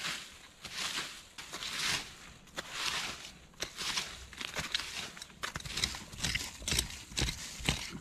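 Dry fallen leaves rustling and crunching in repeated swishes, followed near the end by several sharp knocks of a hatchet against wood, about two a second.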